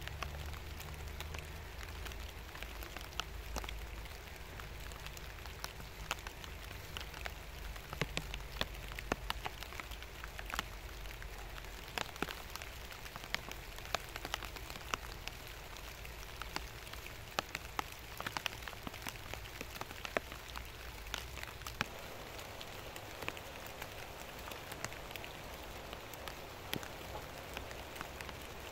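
Rain falling steadily, with many single drops ticking sharply close by.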